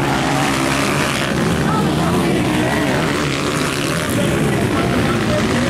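Motocross dirt bike engines revving as riders race round a dirt track, the pitch rising and falling with the throttle.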